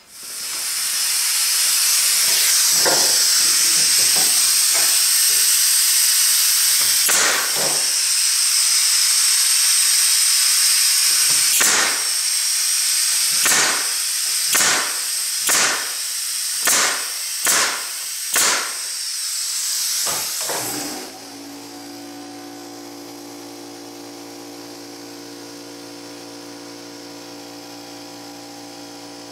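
Pneumatic brad nailer driving 1¼-inch brads into pine boards: about a dozen sharp shots, most of them roughly a second apart, over a loud steady air hiss. The hiss cuts off suddenly near the end and leaves a quieter steady hum.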